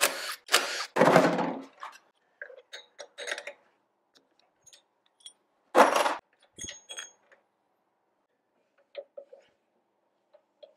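Hands working metal parts and tools at a go-kart engine's intake and carburettor: a few short noisy bursts at the start and one about six seconds in, with scattered light metallic clicks and clinks between them.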